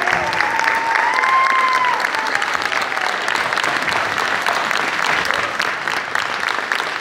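Audience applauding, with many hands clapping steadily. A voice calls out over the clapping in the first two seconds.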